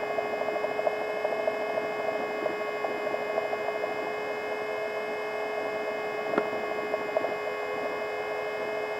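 Cockpit noise of a Vertol tandem-rotor helicopter in flight: the steady whine of its turbines and transmission, many fixed tones held over a rushing haze. A single sharp click about six and a half seconds in.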